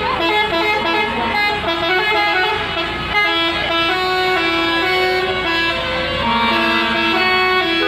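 Indonesian bus 'telolet' musical air horns playing a melody: runs of short held notes, several pitches sounding together, stepping up and down, with a fast-pulsing note near the end. A low engine rumble runs underneath.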